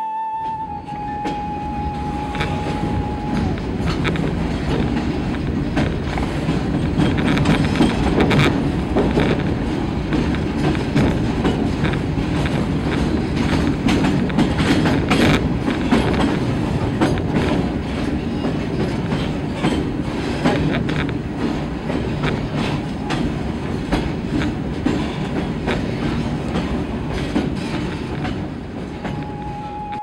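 Freight train passing close by: a steady rumble of steel wheels with rapid, irregular clacks as the wagons roll over the rail joints. A held flute note fades out in the first few seconds.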